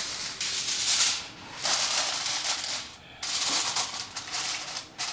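Aluminium foil crinkling as it is pulled from its box and pressed down over the rim of a bowl, in three stretches of loud crackling with brief pauses between them.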